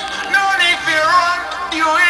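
Background music: a song with a singing voice carrying a melody.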